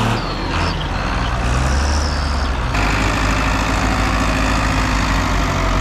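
Diesel engine of a Case International tractor working a buckrake of grass on a silage pit, running hard with its revs rising in the first second. The engine sound changes abruptly a little under three seconds in.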